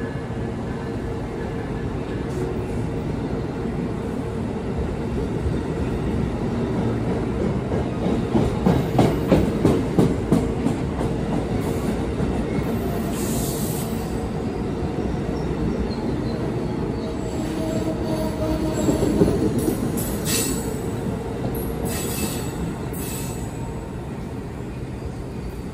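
A train rolling past, its wheels clacking over rail joints about three times a second around the middle, with a brief high squeal and a few sharp metallic clanks later on.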